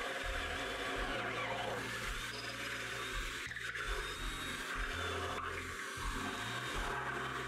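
Cordless drill boring a hole through plywood, the motor running steadily under load with a couple of short dips as the bit works through the board.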